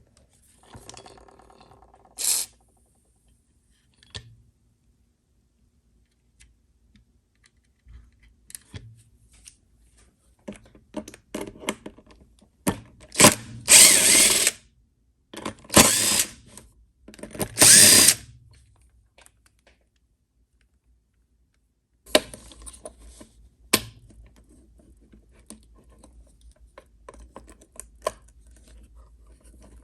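Power drill-driver running in three short bursts about two seconds apart, backing out the screws of a pop-up headlight motor being taken apart for a rebuild, with light clicks and rattles of parts and tools between them.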